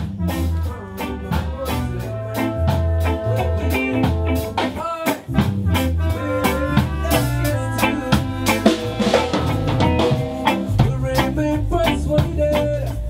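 An Ethio-roots reggae band playing: drum kit keeping a steady beat over a deep bass line, with keyboards and guitar.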